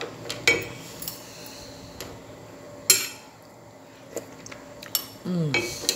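Wooden spoon stirring mussels in their shells in a stainless steel pot, with scattered knocks and clinks against the metal and shells; the loudest is a ringing clink about three seconds in.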